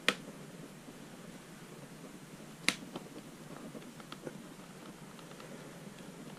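Plastic snap clips of a Samsung Galaxy Tab 3's back cover popping loose as fingers pry around its edge: two sharp snaps about two and a half seconds apart, with faint clicks of plastic between.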